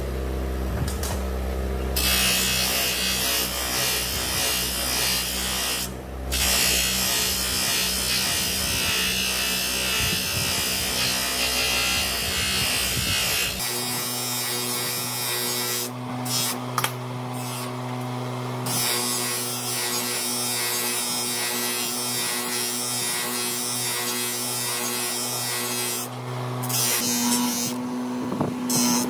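Bench buffer motor running with a steady hum while its cloth buffing wheel is loaded with a green polishing-compound bar and then polishes the steel of a pipe wrench, giving a dense hissing rub. The rub drops away briefly a few times as the work comes off the wheel, while the motor hum carries on.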